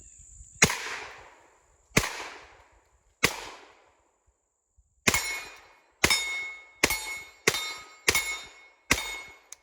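Kel-Tec Sub 2000 9mm carbine firing nine shots: three spaced about a second and a half apart, then six quicker ones in a row. Each of the last six shots carries a brief metallic ring.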